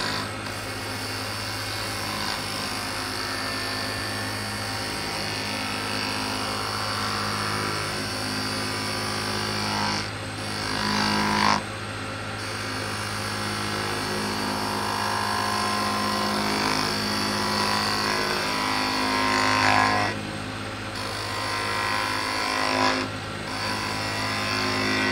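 Wood lathe spinning a magnolia blank while a hand-held turning tool cuts it: a steady motor hum under the hiss of the cut. The cutting sound drops away briefly about ten seconds in, again around twenty seconds, and once more near the end, as the tool comes off the wood.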